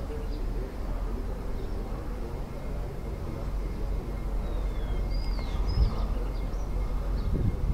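Outdoor ambience: a steady low rumble, with a few short bird chirps about five to six seconds in.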